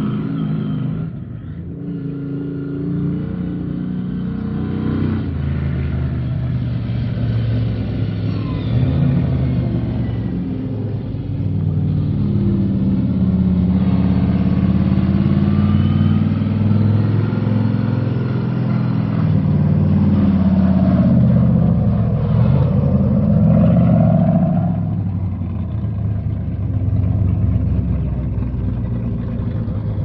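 An engine running loudly and steadily, its pitch shifting up and down as the revs change.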